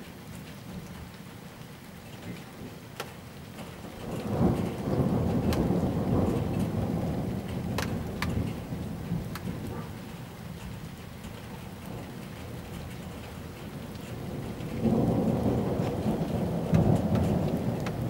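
Rain falling steadily with scattered sharp drop clicks, and two long rolls of thunder from a supercell thunderstorm. The first swells about four seconds in and fades over several seconds; the second begins late on.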